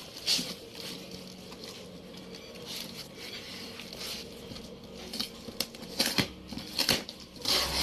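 Packaging being handled: irregular rustling, crinkling and light clicks, with a louder rustle near the end.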